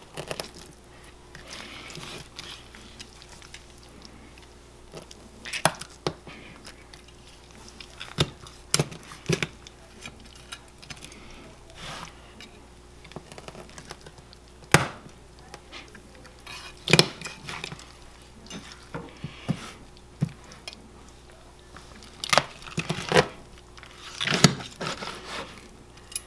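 Kitchen knife cutting a skinned rabbit into pieces on a cutting board: about a dozen sharp knocks of the blade striking the board at irregular intervals, with softer cutting and handling of the meat between. A faint steady hum runs underneath.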